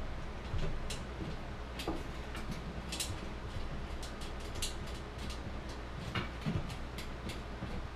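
A hand screwdriver tightening a toggle bolt through a metal microwave wall bracket: irregular small clicks and scrapes of metal as the screw turns and the bracket shifts, over a low steady hum.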